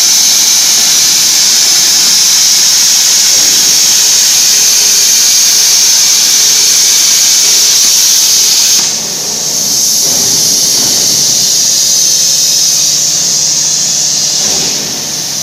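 Plasma torch on a portable CNC cutting machine cutting steel plate: a loud, steady high hiss. It dips about nine seconds in, then carries on a little quieter until it drops away near the end.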